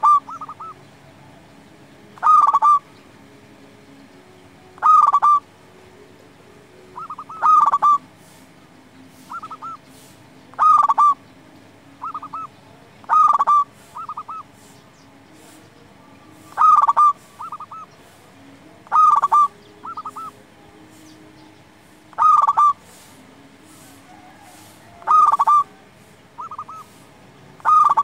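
Zebra dove (perkutut) singing its cooing song over and over, one phrase every two to three seconds. Each phrase is a loud coo followed by two or three softer short notes.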